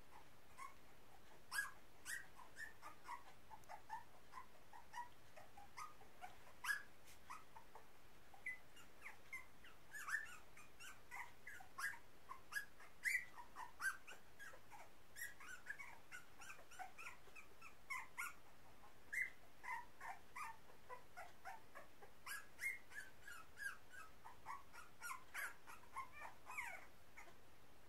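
Very young puppies squeaking and whimpering: a steady string of short, high-pitched squeaks, some sliding up or down in pitch, with faint sharp clicks among them.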